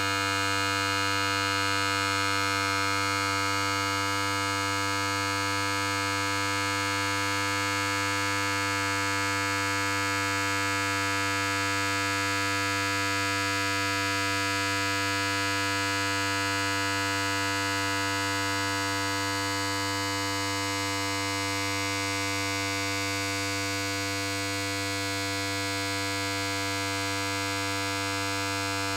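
Electric hair clipper running continuously: an even, unchanging buzz with a strong low hum.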